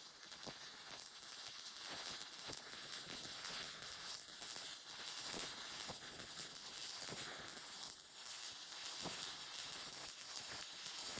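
MIG welding arc crackling and sizzling steadily, a continuous hiss with many small irregular pops.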